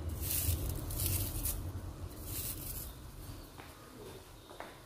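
Dried leaves being crumbled and dropped into a pot of soup: a soft rustling for about the first second and a half, then fainter, with a few light ticks near the end.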